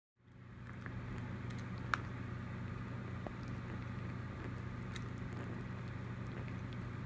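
Pet rat with a pituitary tumor, being hand-fed, eating soft mashed food from a small bowl: faint wet chewing and licking over a steady low hum. A sharp click comes about two seconds in and a smaller one near five seconds.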